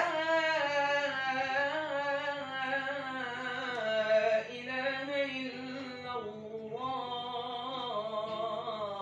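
A solo male voice recites the ezan (Islamic call to prayer) into a microphone in long, ornamented melismatic phrases, holding and bending each note. It begins abruptly after a pause.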